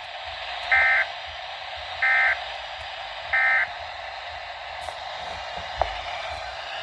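Weather radio receiver sounding three short, buzzy digital data bursts about a second apart over steady radio hiss. These are SAME end-of-message codes closing a broadcast weather bulletin.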